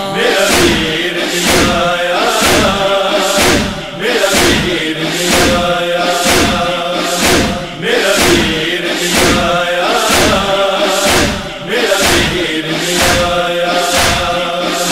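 Lament (noha) backing: a chorus of voices chanting a held refrain over a steady beat of thuds, about two a second, in the manner of matam chest-beating. The chant falls away briefly about every four seconds between phrases.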